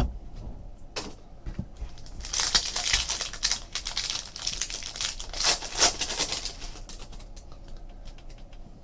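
Wrapper of a 2014 Panini Rookies & Stars football card pack being torn open and crinkled by hand: a dense run of rapid, high-pitched crackling from about two to six seconds in, with a few single clicks before it and lighter rustling after.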